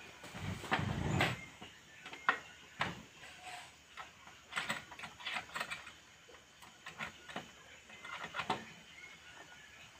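Wooden plank door of a forest hut being shut and fastened by hand: short knocks, taps and rattles of wood, in small clusters. Near the start a rustling thump as a plastic bag is set down.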